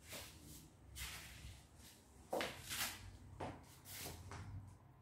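Faint footsteps shuffling across a floor, about seven uneven steps with a scuff and rustle at each, the loudest pair in the middle.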